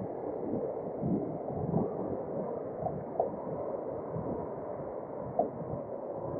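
Muffled road traffic noise, a steady rumble with irregular soft thumps.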